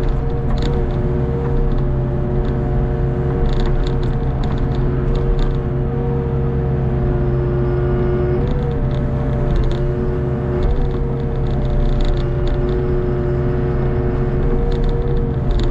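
Hitachi ZX48U mini excavator's diesel engine running steadily under working load, with a steady hydraulic whine that sags briefly a few times as the arm and bucket move. Faint clicks and clanks now and then.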